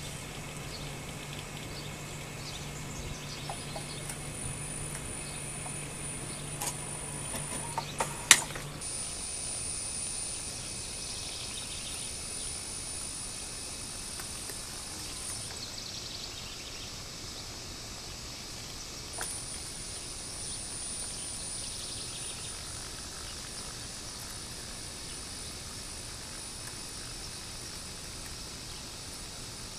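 Outdoor background noise with a steady hiss and insects faintly buzzing. A low steady hum and a few light clicks in the first part end with one sharp click about eight seconds in.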